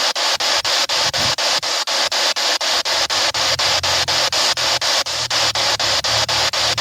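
Spirit box sweeping through radio stations: steady static hiss chopped into short pieces about five times a second by the sweep. A low hum comes in about halfway through.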